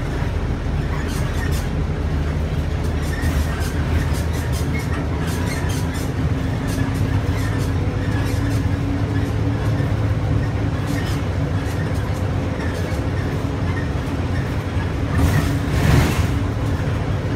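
Cabin noise of a GAGC GZ6111SN city bus under way: steady engine and road rumble with small rattles and clicks from the interior. The engine note rises slightly about six seconds in, and a brief louder rush of noise comes near the end.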